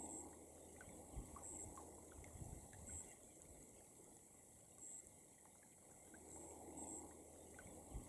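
Near silence: a faint low outdoor rumble, with a few soft bumps.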